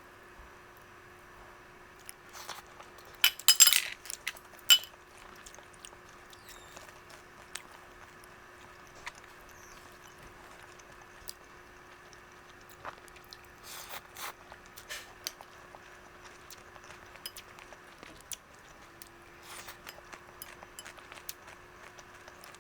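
Clicks and clinks of kitchen utensils and dishes being handled. The loudest cluster comes about three to four seconds in, and lighter taps are scattered later, over a faint steady hum.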